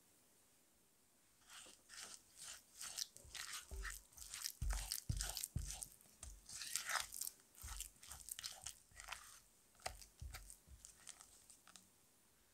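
Silicone spatula mixing granulated sugar into softened cream cheese in a glass bowl: a long run of irregular squishing, scraping strokes against the glass, with a few dull bumps. It starts about a second and a half in.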